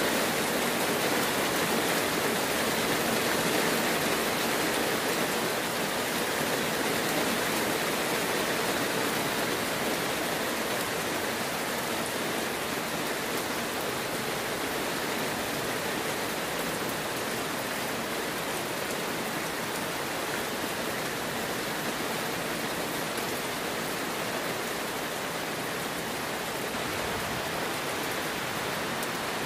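Heavy rain falling steadily, an even hiss of downpour without breaks, easing slightly in loudness over the first ten seconds or so.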